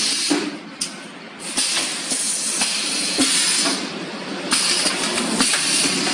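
Automatic wooden hanger assembling machine running: a dense, jingling metal rattle and clatter with irregular sharp knocks.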